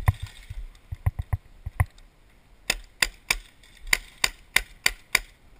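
Paintball marker firing close by: a few scattered pops in the first two seconds, then a string of about eight sharp shots at roughly three a second.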